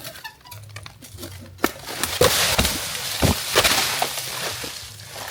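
A heavy piece of sycamore tree falls and crashes down through leaves and twigs, with a sharp crack and then several heavy thuds over about three seconds before the rustling dies away.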